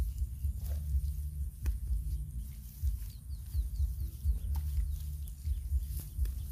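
Low, fluttering rumble of wind buffeting the microphone outdoors, over faint pats and scrapes of hands working wet earth. A short run of quick high chirps from a bird about halfway through.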